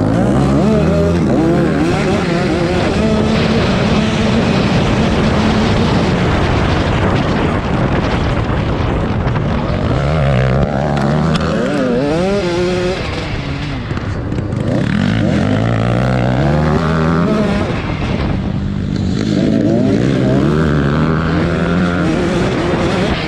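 Several dirt-track racing motorcycles running at once, their engines revving up and down over and over as they race.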